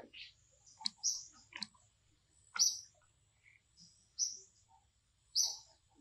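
Short, high chirps repeating about once every second or so, among scattered soft clicks and rustles.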